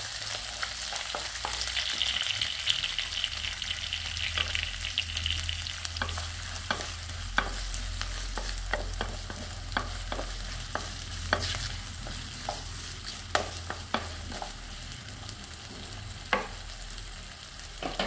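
Chopped onions and whole spices frying in hot oil in a clay kadai: a steady sizzle, with a wooden spatula stirring and knocking against the clay pot in a scatter of sharp clicks, most of them in the middle stretch.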